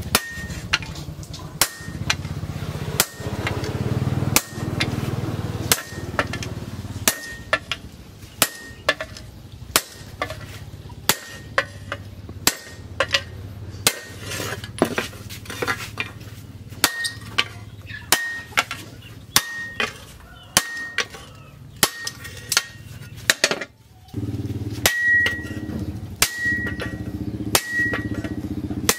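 Hand hammer striking steel on an anvil in a steady rhythm, about one blow every second and a quarter, many blows leaving a short high anvil ring. A steady low hum runs underneath and gets louder near the end.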